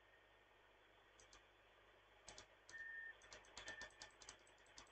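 Faint, irregular series of light plastic clicks from a laptop's keys or mouse as the radio's tuning frequency is stepped down, starting about a second in.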